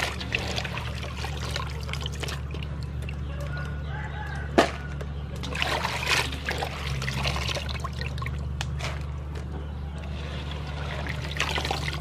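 Hands stirring and rubbing razor clams in water in an aluminium basin to wash out their sand: water swishing and trickling, with shells clicking against each other and the metal. One sharper knock comes about halfway through, over a steady low hum.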